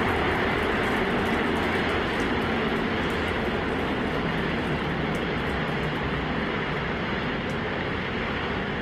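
The 33 Raptor engines of SpaceX's Super Heavy Booster 9 firing on ascent: a steady roar that slowly fades as the rocket climbs away.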